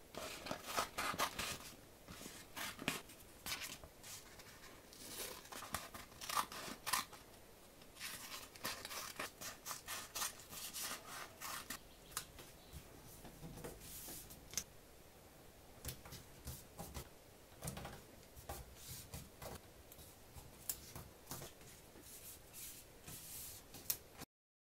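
Paper template being cut and handled on a wooden board: runs of crisp snips and paper rustles in irregular bursts, cutting off suddenly near the end.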